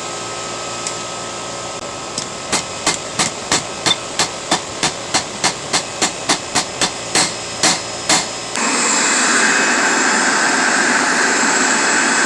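Hammer striking hot steel on an anvil: about twenty quick, even blows, roughly three a second, over the steady roar of the forge. Near the end the hammering stops and the forge roar gets louder.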